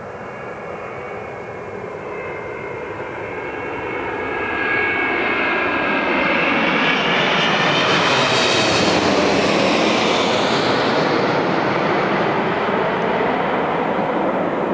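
Jet airliner engines running: a whine over a rushing roar that grows louder over the first eight seconds or so and then holds.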